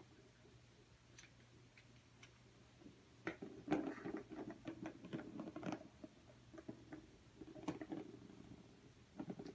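A cat toy being batted about, giving light, quick taps and rattling clicks in bursts: a cluster about three to six seconds in, a shorter one near eight seconds, and another just before the end.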